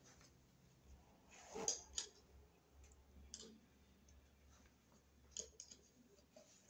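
Faint handling noise: a few scattered clicks and knocks of hand tools being picked up, the loudest two close together about two seconds in.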